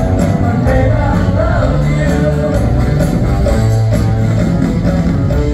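Live rock band playing through a stadium PA: electric guitars, bass, drums and lead singing, recorded from within the crowd.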